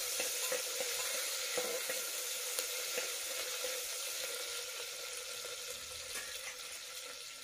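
Chopped onion, green chilli and cumin sizzling in hot mustard oil in an aluminium pressure cooker, being fried until browned, with a spoon stirring now and then. The sizzle grows gradually quieter.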